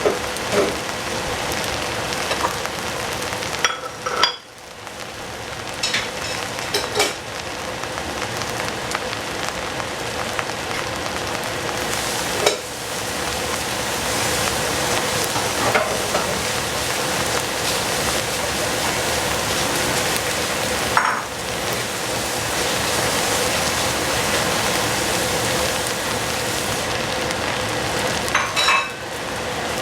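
Rice frying in a pan, sizzling steadily while it is stirred, with scattered clicks and scrapes from the stirring utensil and a faint steady hum underneath.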